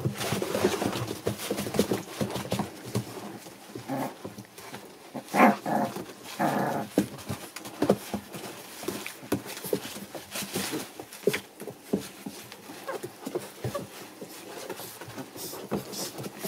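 A litter of American Bully puppies play-fighting: short puppy growls and yelps, loudest twice around the middle, over constant scuffling of paws and rustling of bedding and puppy pads.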